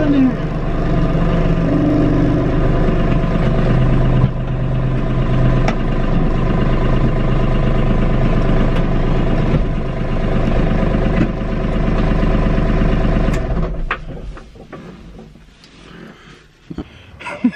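Kubota B2650 compact tractor's three-cylinder diesel engine running steadily, heard from inside the cab. It shuts off about three-quarters of the way through, leaving a few light knocks near the end.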